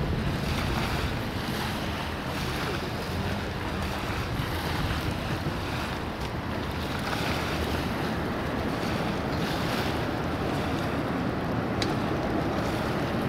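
Steady rushing roar of wind buffeting the microphone, mixed with the distant jet noise of an Airbus A380 rolling out after touchdown. A brief tick near the end.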